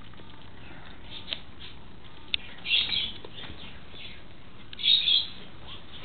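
A pet bird chirping in two short bursts, about three seconds in and again near the end, with a sharp click just before the first.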